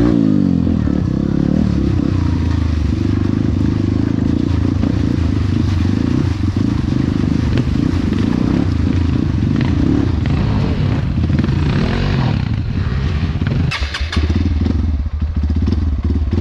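Honda CRF150L trail bike's single-cylinder four-stroke engine running under load, its revs rising and falling. A short burst of clattering comes near the end.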